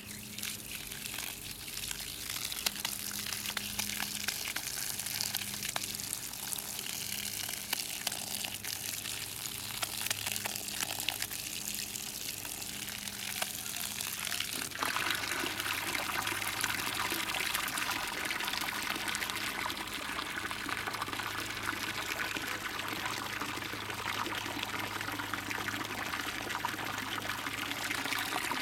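Water pouring steadily from a garden hose and splashing, the rush growing fuller about halfway through.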